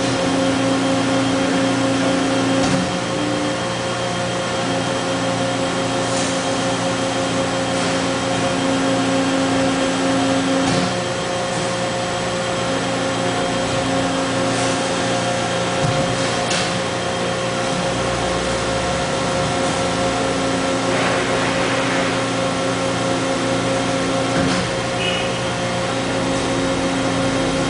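Hydraulic press's pump unit running with a steady hum while the press cycles through a manual close-and-open stroke: a lower tone cuts in and out several times as the valves shift and the ram moves, with a few sharp valve clicks.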